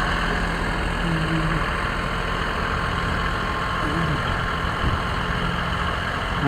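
Heavy vehicle engine idling steadily.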